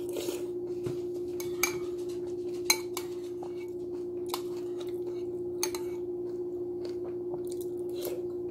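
A spoon clinking against a bowl a few times while cereal is eaten, over a steady hum.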